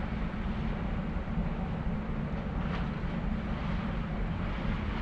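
Steady low rumble of a cruise ship under way, its engines and machinery heard from the open deck, with an even hiss over it.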